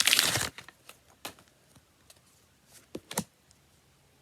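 A trading card pack's wrapper crinkling as it is torn open about half a second in, then the cards handled with a few light clicks and taps.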